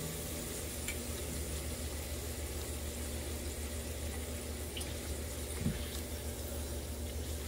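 Steady bubbling sizzle of an empanada shallow-frying in hot oil, with a spatula working the oil in the pot, over a low steady hum. A single soft knock comes about five and a half seconds in.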